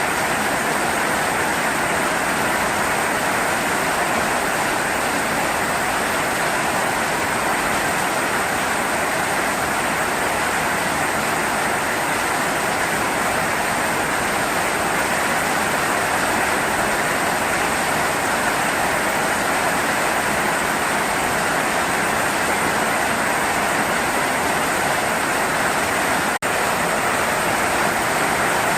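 Steady heavy rain falling, an even wash of noise that cuts out for an instant near the end.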